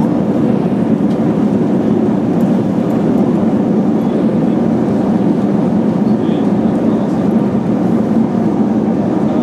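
Loud, steady rumble of a jet airliner heard from inside the cabin during landing: engine and airflow noise, with no distinct thumps.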